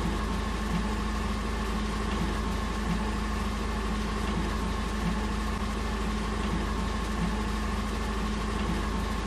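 Steady mechanical hum with a faint whine, like a motor running, unchanging throughout.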